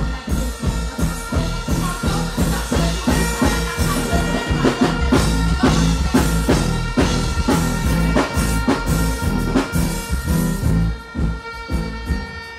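Loud music over a stage sound system: a steady drum beat and heavy bass under held notes. The bass drops away about a second before the end.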